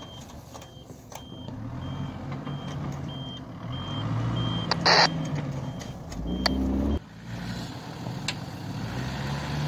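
Mitsubishi L200 pickup backing up, its reverse beeper sounding about every half second over a low engine hum. A brief loud hiss about five seconds in, and the engine note rises just before the beeping stops, about seven seconds in.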